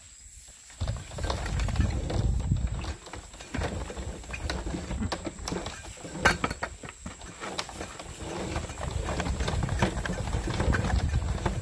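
Black poly drop pipe and pump wire running over a metal roller guide into a well casing as the well pump is lowered, a low rumble in stretches of a few seconds with scattered clicks and knocks.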